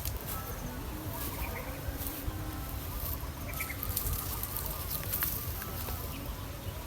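Mouth sounds of someone eating spicy papaya salad: short crunches and smacks now and then, over a faint low murmur.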